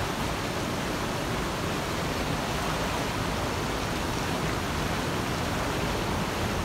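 Fast-flowing mountain stream rushing steadily, an even wash of water noise with no breaks.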